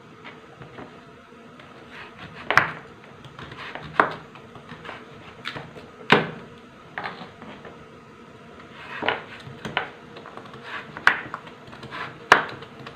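Kitchen knife chopping through raw sweet potato and knocking on a plastic cutting board, in irregular strokes about a second or two apart.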